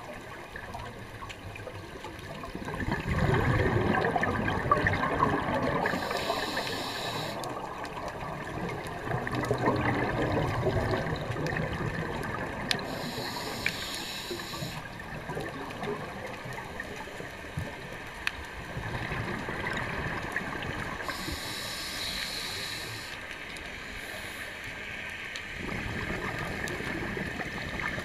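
Scuba diver breathing through a regulator underwater: a short hissing inhale, then a longer gurgle of exhaled bubbles, the cycle repeating about every seven or eight seconds.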